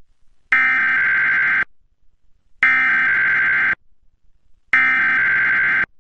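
Emergency Alert System SAME data tones: three identical screeching digital bursts, each about a second long and a second apart, sent over the radio broadcast.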